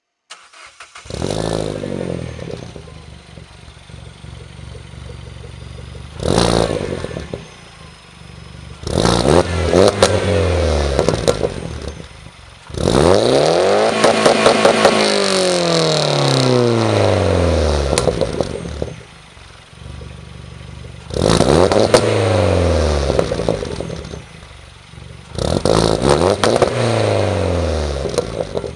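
Peugeot 207 Le Mans Series with an aftermarket exhaust system, revved six times from idle, the longest rev held for about five seconds in the middle, each falling back to a steady idle. Short crackles come from the exhaust near the tops of several revs.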